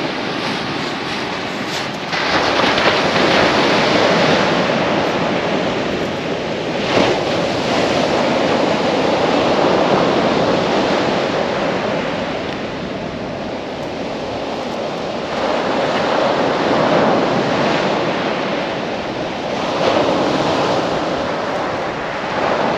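Sea surf breaking on a shingle beach, a steady wash of noise that swells with each wave and eases between them every few seconds.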